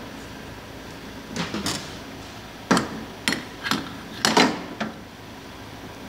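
Metal clinks and knocks of a stainless-steel espresso portafilter being seated and twisted into the machine's group head, about seven sharp strikes between a second and a half and five seconds in, over a steady background hum.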